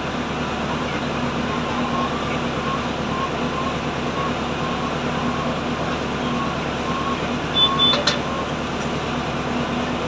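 Steady mechanical hum over a background of noise, with a short click and a brief high beep about eight seconds in.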